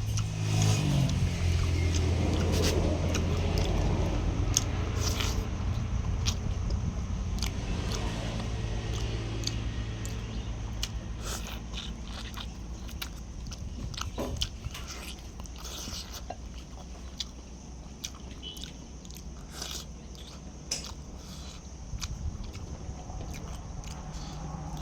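Close-up chewing and biting into free-range chicken, with short crunchy clicks throughout. A low droning hum is loudest at the start and fades out over the first ten seconds or so.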